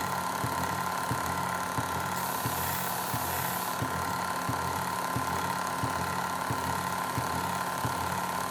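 Oscillating sander running steadily, sanding the pins of a wooden knife: a motor hum with a regular low pulsing beneath it. A higher hiss swells between about two and four seconds in.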